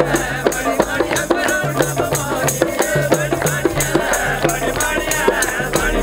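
Folk music with singing over hand drums and a quick, steady rattling beat.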